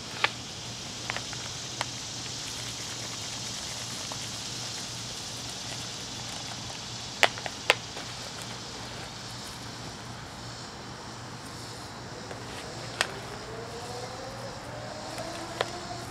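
Sharp taps and clicks from a plastic nursery pot being handled and shaken to sprinkle soil over a garden bed, a few scattered ones and a close pair about halfway through, over a steady background hiss. Near the end a low drone slowly rising in pitch comes in.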